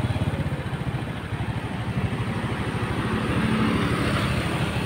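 Motorcycle engine running with a rapid, even pulsing as it rides along.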